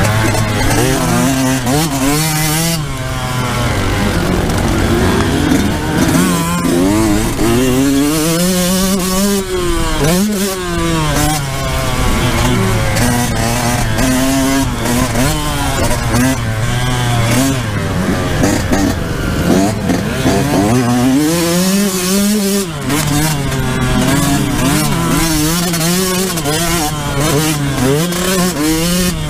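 Yamaha YZ125's 125cc two-stroke single-cylinder engine, heard up close from the bike itself while it is ridden hard round a motocross track. The engine revs up and falls back over and over, its pitch climbing and dropping with each throttle change.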